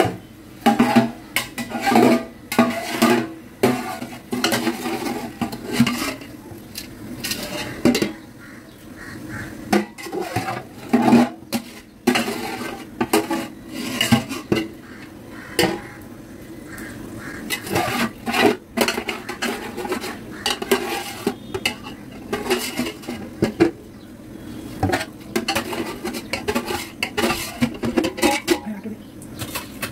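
A perforated steel skimmer clinking and scraping against the side and bottom of a metal pot in irregular knocks, as gond (edible gum) is stirred and scooped out of hot ghee.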